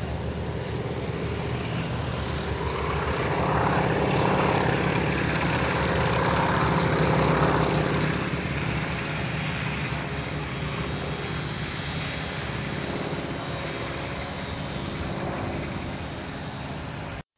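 Propeller engine of a small single-seat Mini-Max-type aircraft running as the plane rolls along a grass strip, growing louder for a few seconds and then easing off as it slows.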